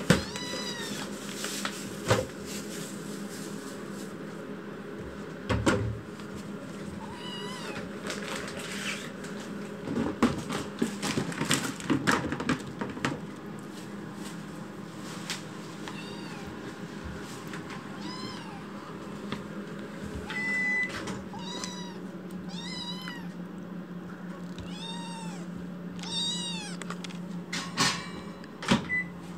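Young kitten meowing loudly over and over, a string of short arched cries every second or two as it paces about, crying after waking. A few knocks and bumps come in between, most around the middle, over a steady low hum.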